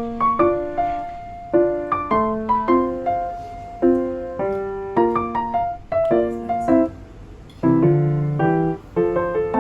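Background piano music: a gentle melody of struck notes, each ringing and fading, with occasional deeper bass notes.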